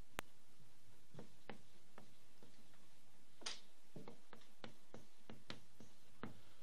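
Chalk tapping and scratching on a chalkboard as words are written: scattered light taps, a short scrape about three and a half seconds in, then a quick run of taps.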